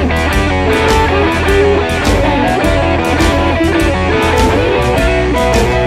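Electric blues band playing an instrumental passage: electric guitar lines over bass and drums with a steady beat.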